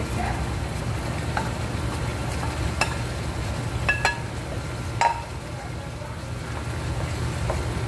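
Wooden spoon scraping sliced bell peppers off a ceramic plate into a pan of simmering sauce and stirring them in. A handful of sharp knocks of the spoon against plate and pan are the loudest near the middle, over a steady low hum.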